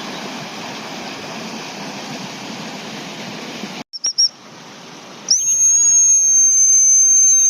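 Fast river water rushing steadily. It cuts off about halfway through, and a high-pitched dog whistle gives two short pips, then one long, steady blast of about two and a half seconds, a recall signal calling the dog back.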